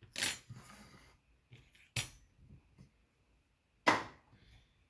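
Small soldered metal frame jig knocking against a hard work surface: three sharp knocks about two seconds apart, the first followed by a brief rattle.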